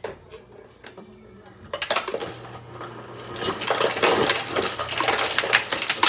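Hard objects clattering and rattling against dishware in a rapid jumble, starting about two seconds in and getting louder, over a low steady hum.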